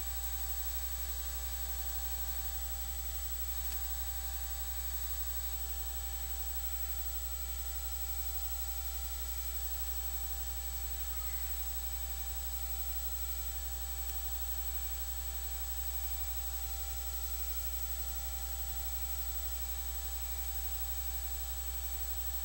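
Steady low electrical hum with an even hiss and a faint high whine, unchanging throughout; no arena sound comes through.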